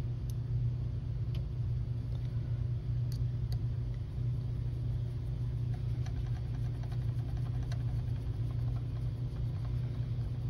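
Steady low hum of background room noise, with a few faint light clicks from a small screwdriver and plastic locomotive truck parts being handled.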